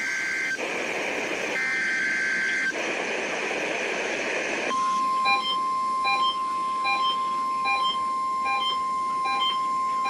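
NOAA weather radio receiving an EAS Required Weekly Test. It plays the warbling two-tone SAME data bursts of the alert header with static hiss between them. About five seconds in, a steady alert tone comes on, with the receiver's alarm beeping over it a little more than once a second.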